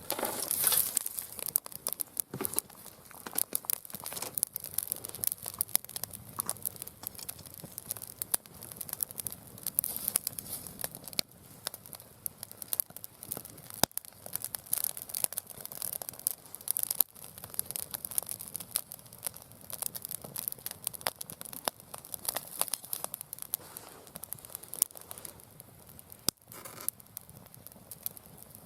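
Mixed hardwood burning in a round fire pit, crackling with frequent sharp pops and snaps over a steady hiss.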